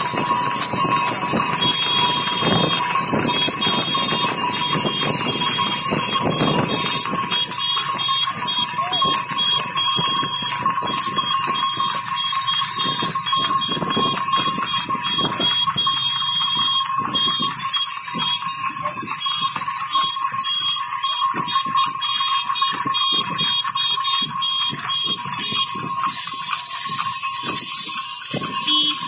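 Horse trotting on asphalt while pulling a racing cart: irregular hoofbeats on the road under steady wind and road noise.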